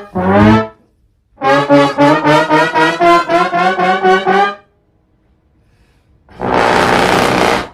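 Trombone-like brass sound effect: the end of one held note, then about a dozen quick notes at a steady pitch, about four a second, over some three seconds. Near the end comes a loud burst of hiss lasting just over a second.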